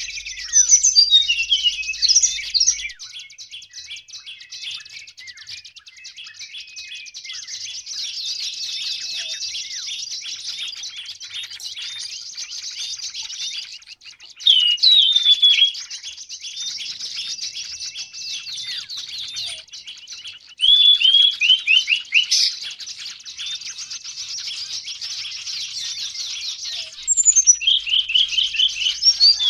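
A noisy chorus of flowerpeckers and other small birds: dense high twittering throughout. Loud bursts of quick, downslurred calls come at the start, midway, around two-thirds through and near the end.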